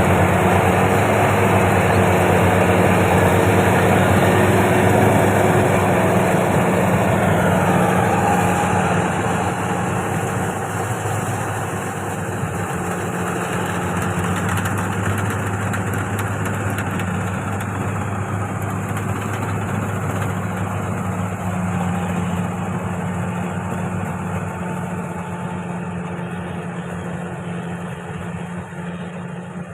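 Rice combine harvester engine running steadily with a low hum, loudest for the first several seconds and then growing gradually fainter.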